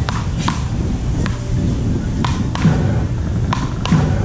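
Ball struck back and forth with beach racket paddles: a series of sharp, irregularly spaced pops, several in quick pairs, over a steady low background hum.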